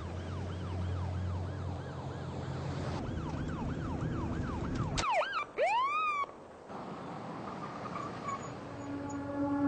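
Police car siren in a fast yelp, rising and falling about two and a half times a second over a car engine's low rumble. About five seconds in the yelp stops and a few sharp swooping sweeps follow, then only a low rumble is left until a held musical tone comes in near the end.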